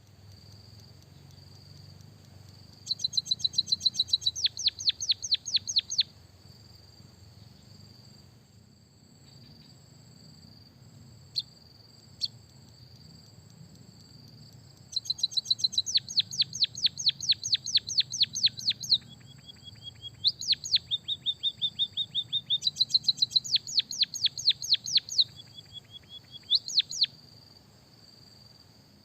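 Small songbird singing bursts of fast, repeated, high notes, each sweeping sharply downward, with a few short held whistles between them, over a steady high cricket-like trill. It is a masteran track of white-headed munia song with canary phrases, used to coax caged birds into singing.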